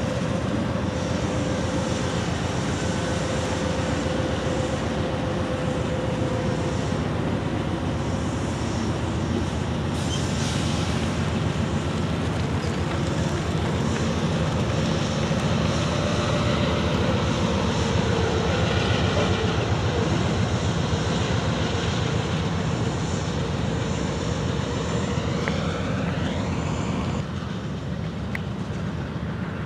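Norfolk Southern freight train passing close by: the steady drone of diesel locomotive engines over the rumble of cars rolling on the rails, with a short high wheel squeal near the end.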